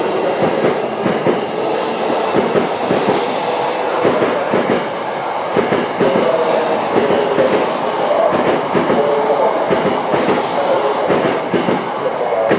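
Tokyo Metro 05 series electric train pulling out of the station, its wheels clicking quickly over the rail joints with a steady rumble. A wavering tone rises above the clatter in the second half.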